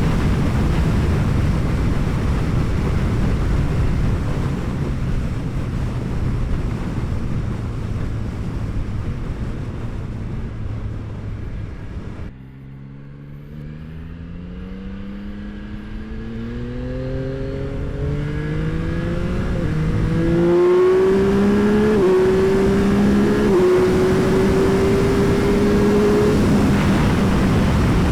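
Yamaha R9's inline-three engine through an Akrapovic exhaust, heard from on board while riding. At first steady engine note under heavy rushing wind noise; about halfway the rushing drops away suddenly and the engine climbs up through the revs, its pitch falling back twice at upshifts before settling into a steady tone near the end.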